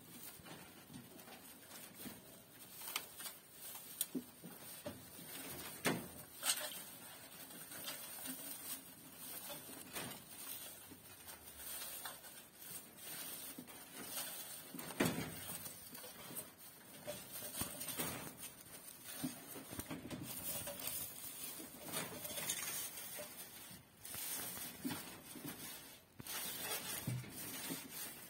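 Doe rabbit moving and working in dry straw bedding while building her nest before kindling: irregular rustling of straw with scattered sharp clicks.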